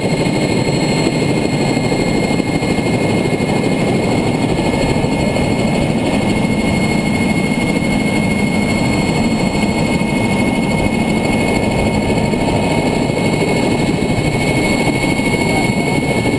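Agusta helicopter's turbine engine and rotor running steadily on the ground, a constant turbine whine over a loud, even rush of noise. This is an engine run to begin balancing the newly overhauled main rotor blades.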